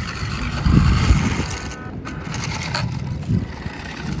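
WPL D12 RC mini pickup truck driving over gravel and dirt: a small electric motor and gearbox whine with scattered crunching of the tyres on loose stones. A stronger low rumble comes in about a second in.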